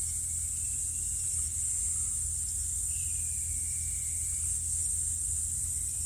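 Steady high-pitched hiss with a low hum underneath, and no distinct tool or metal sounds.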